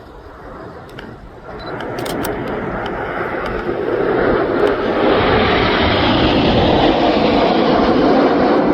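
A formation of BAE Hawk T1 jet trainers flying in, the noise of their turbofan engines building from about a second and a half in to a loud, steady rush.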